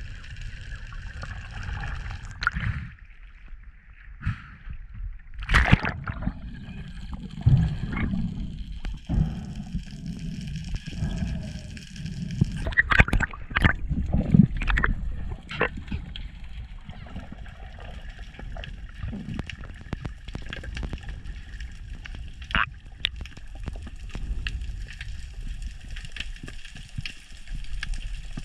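Water heard underwater during a breath-hold dive: a steady low rumble and gurgling of water moving past, broken by scattered sharp clicks and knocks, with clusters of them a few seconds in and about halfway through.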